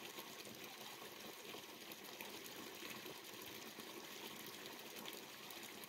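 Faint, steady rushing noise of the open mountainside with no distinct event in it.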